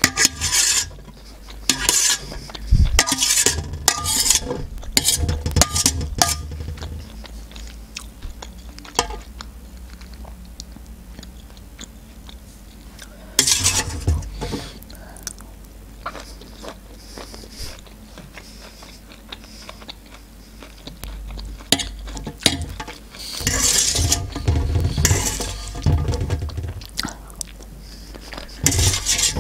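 Metal fork scraping and clinking on a metal serving tray as canned sweet corn kernels are scooped up, with close-miked chewing of the corn. The clatter comes in bursts: through the first several seconds, briefly around the middle, and again over the last several seconds.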